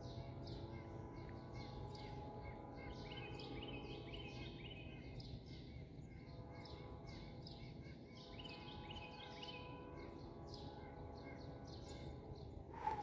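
Distant Nathan P5 five-chime air horn on a GE ES44DC locomotive sounding two long blasts, the first from the start to about five seconds in, the second from about eight seconds in to near the end. Heard faintly, with songbirds chirping.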